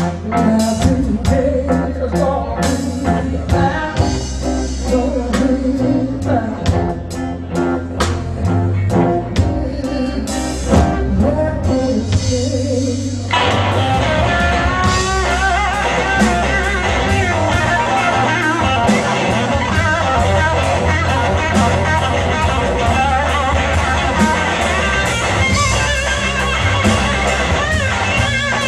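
A live blues-rock band: electric guitar over bass and drums. About 13 seconds in the sound turns suddenly fuller and denser, and wavering lead guitar lines carry the rest of the passage.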